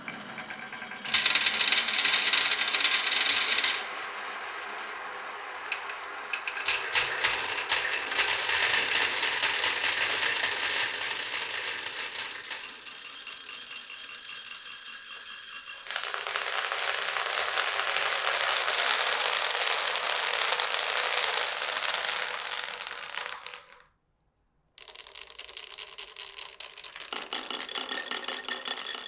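Marbles rolling and clattering down a wooden marble run: long stretches of steady rolling rush mixed with clicks and rattles as the balls knock against the track. The sound stops dead for a moment near the end, then picks up again as a quicker clicking rattle.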